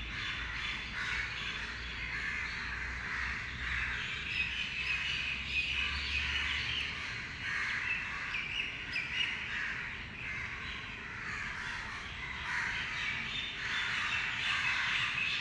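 Many birds chirping and calling together in a dense, continuous chorus of short overlapping calls. A low hum underneath stops about six seconds in.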